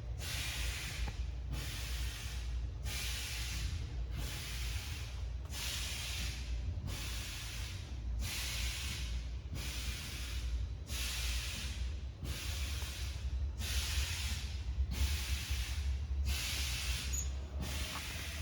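Gas filler on a can filling line giving short, regular hisses of gas, about one a second, over a steady low machine hum.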